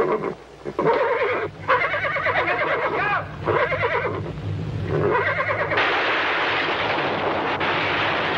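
A horse whinnying in several long, wavering calls. About six seconds in, a loud steady din of crumbling masonry takes over: an earthquake sound effect.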